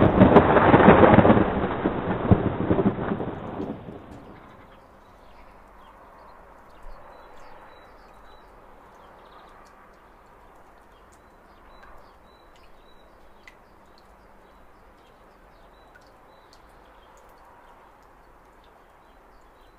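A sudden loud rumble that fades away over about four seconds, followed by a faint steady hiss with scattered small ticks.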